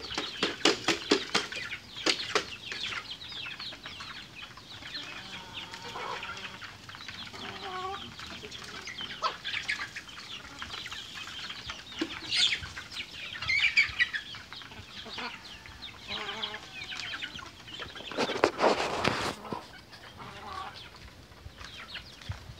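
Free-range native chickens clucking and calling as they peck at feed, with a loud burst of wing flapping lasting about a second near the end.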